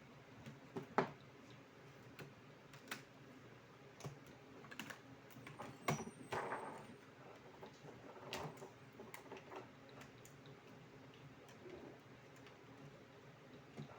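Scattered clicks and light knocks of a Lenovo IdeaPad S110 netbook's plastic and metal parts being handled during repair. The loudest click comes about a second in and another near the middle, followed by a brief rustle.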